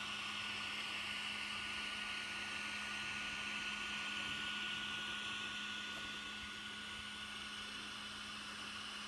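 Cooling fans of a Prusa i3 3D printer whirring steadily, with a low electrical hum and a faint thin whine underneath.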